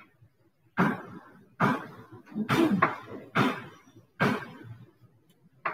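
Chalk striking and rubbing on a blackboard in about six short strokes, each starting sharply and fading quickly, as a drawing is shaded in.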